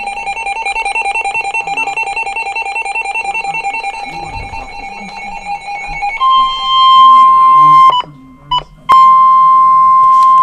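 Weather radio alert signal: a rapidly pulsing electronic alarm of several tones for about six seconds, then the steady single-pitch NOAA Weather Radio warning alarm tone (1050 Hz). The tone cuts out for about a second, with a short blip in the gap, then comes back.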